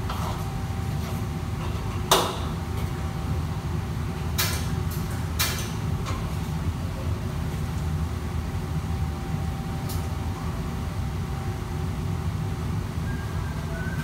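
Steady low roar of commercial wok burners and the kitchen extraction hood, broken by a few sharp clanks of a metal utensil against a steel wok, the loudest about two seconds in.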